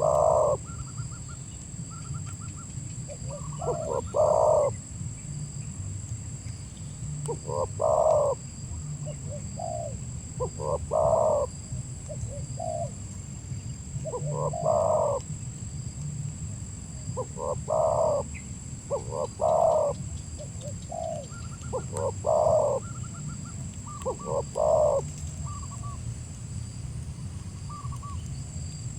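Spotted dove (tekukur) cooing: short repeated coo phrases, one every three to four seconds.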